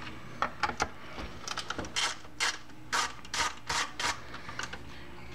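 Screwdriver backing screws out of a BMW K1100LT electric windscreen base: a string of short clicking, rasping strokes, about two a second in the middle.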